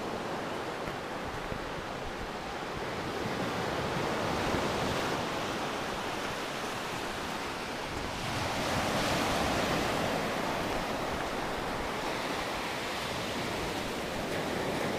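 Waves breaking and washing up a sandy beach: a steady hiss of surf that swells as a wave comes in about eight seconds in.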